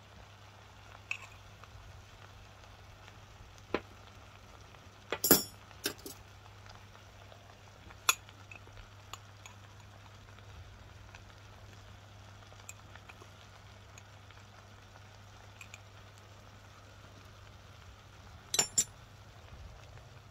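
A steel spoon clinking now and then against the spice cup and clay pot as ground spices are spooned in: a few single clinks, the loudest about five seconds in, and a quick pair near the end, over a faint steady low hum.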